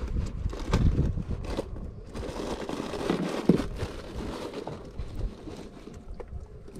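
Irregular rustling and knocking handling noise from fabric and movement against a body-worn camera, with a brief squeak a few seconds in.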